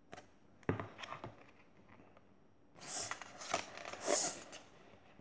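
Paper picture book being handled and a page turned: a few sharp taps in the first second or so, then about two seconds of paper rustling.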